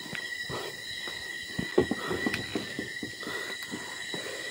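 Footsteps and rustling of someone walking, a few soft knocks among them, over a steady high-pitched drone of night insects.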